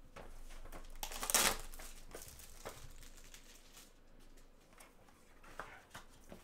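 Plastic shrink wrap being torn and crinkled off a sealed trading-card hobby box, loudest for about half a second a second in. Lighter rustling and small clicks follow as the cardboard box lid is opened.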